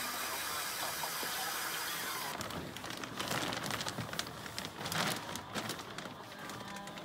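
A cordless drill with a mixing paddle runs steadily, stirring liquid in a plastic bucket. About two seconds in it gives way to irregular crinkling and rustling of plastic sheeting and bagging.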